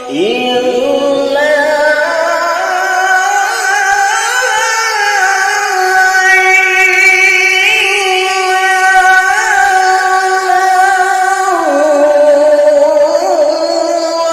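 A qari's solo voice in melodic Qur'an recitation (tilawah), drawing out one long melismatic phrase: it slides up at the start, holds with small ornamental wavers, and steps down to a lower note about eleven seconds in.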